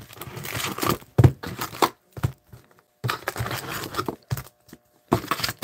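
Foil hockey-card packs crinkling and rustling as they are handled in an opened hobby box, with a few light knocks.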